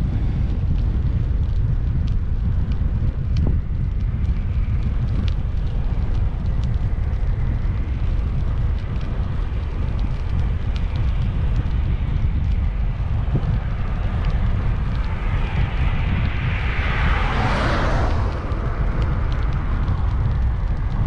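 Wind rumbling over the microphone of a camera on a moving bicycle. About fifteen seconds in, a vehicle's noise swells up as it passes and falls away about three seconds later.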